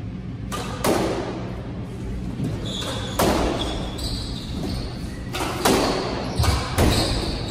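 Doubles squash rally: a series of sharp cracks of the ball struck by rackets and hitting the court walls, each with a short echo, irregularly spaced and several coming close together near the end, with a few short high squeaks of shoes on the wooden floor.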